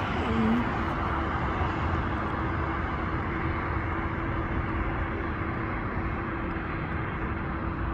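Road traffic: cars driving along a busy road, a steady rush of tyre and engine noise with a faint steady hum.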